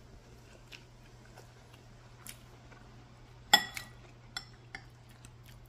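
A metal spoon clinking against a ceramic soup bowl: one sharp, ringing clink about three and a half seconds in, with a few lighter taps around it. A low steady hum runs underneath.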